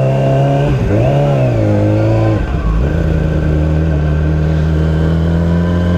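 Sportbike engine revving up and easing off twice at low speed, then holding a steady note from about three seconds in.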